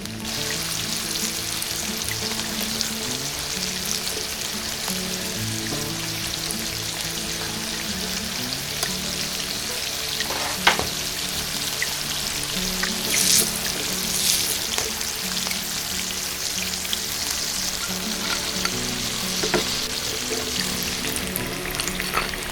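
Hot oil sizzling steadily as small pieces of chicken fry in a miniature pan, with a few louder crackles and spits around the middle. Soft background music plays underneath.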